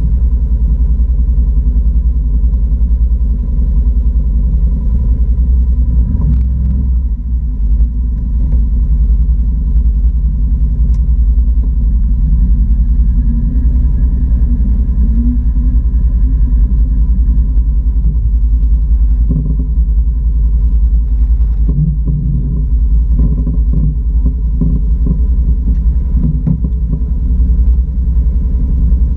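Can-Am Outlander 650 ATV's V-twin engine running steadily as the quad is ridden over rough grassy ground, with a deep low rumble and a thin steady whine above it. A few light knocks come through around the middle and toward the end.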